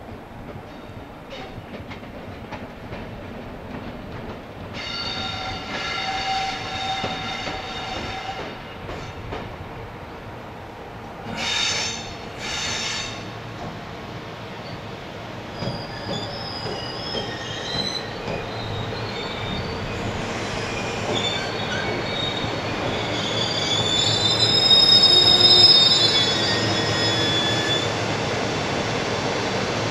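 JR Freight EF210 electric locomotive moving slowly through a freight yard: its steel wheels squeal on the curves and points, in changing high-pitched tones that grow louder towards a peak about 25 seconds in. A steady high whine runs from about 5 to 9 seconds in, and two short loud bursts come about 12 seconds in.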